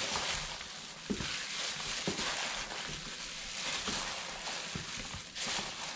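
Raw chicken wings being worked by hand in a wet marinade: soft, irregular squelches over a steady hiss.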